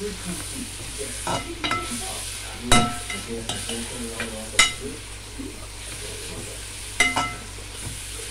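Sliced onions and green chillies sizzling in hot coconut oil in a steel pan while a steel spoon stirs them, with several sharp ringing clinks of the spoon against the pan, the loudest about three seconds and four and a half seconds in.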